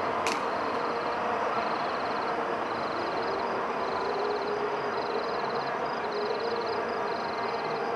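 Night ambience: insects chirping in short, rapidly pulsed trills repeating every half second or so over a steady distant city hum, with one short click near the start.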